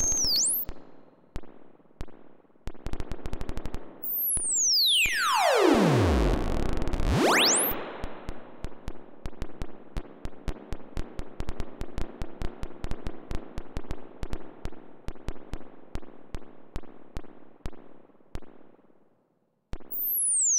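Home-built breadboard noise oscillator (Mroztronium New Unusual Oscillator) played through a small amplifier and spring reverb, its pitch moving as a knob is turned. Irregular clicks and crackles give way to a tone that swoops from very high down to a low growl and back up, then a long stretch of rapid, uneven, noisy pulses. It cuts out briefly near the end and comes back with another high falling sweep.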